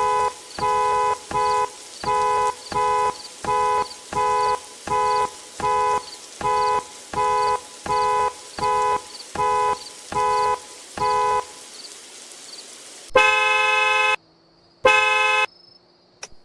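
Two-note car horn beeping in a steady pulse, about three beeps every two seconds, as a car alarm sounds through the horn. The beeping stops about eleven seconds in, and a louder car horn then gives a honk of about a second and a shorter second honk.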